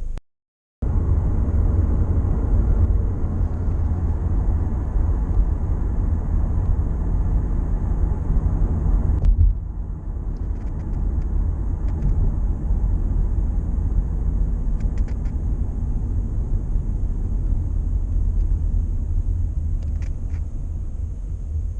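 Toyota Camry driving slowly, heard from inside the cabin: a steady low rumble of engine and road, which drops in level about nine seconds in, with a few faint clicks after that.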